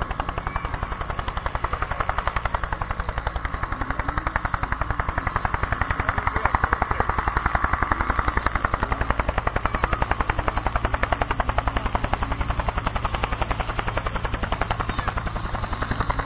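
Steady, rapid mechanical throbbing, many even beats a second, growing a little louder around the middle.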